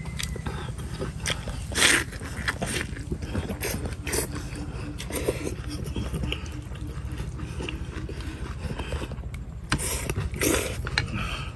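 Eating sounds from a bowl of rice-noodle soup: noodles slurped and chewed, with chopsticks and a metal spoon scraping and clicking against the ceramic bowl. The loudest strokes come about two seconds in and again about ten seconds in.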